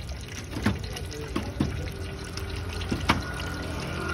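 Eggs frying in oil on a tawa over a gas burner: a steady sizzle broken by several sharp pops of spattering oil, the loudest about three seconds in.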